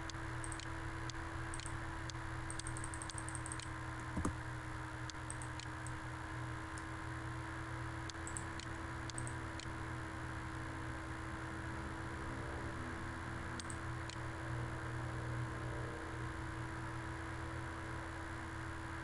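Faint, scattered clicks of a computer mouse, with a quick run of clicks about three seconds in and one louder click just after, over a steady electrical hum and hiss.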